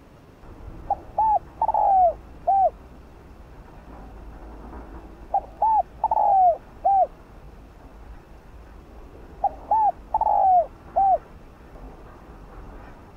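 Spotted dove cooing its song. There are three identical phrases about four seconds apart, each a short note, a second coo, a longer falling coo and a final short coo.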